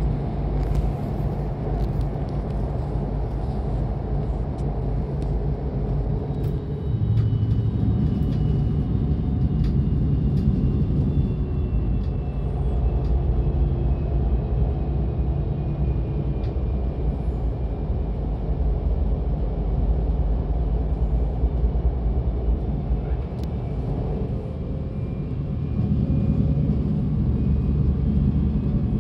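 DB Class 425 electric multiple unit running along the line: a steady low rolling rumble with faint whining tones that drift slowly in pitch.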